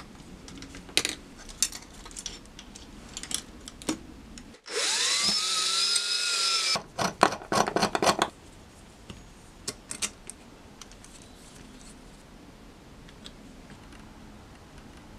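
Power drill boring a hole through a thin metal chassis plate. The motor whine rises and levels off for about two seconds, then a quick run of rattling clicks follows. Light clicks of small parts being handled come before and after.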